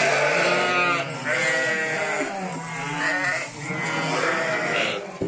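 A flock of sheep bleating, several quavering calls overlapping one after another with hardly a break.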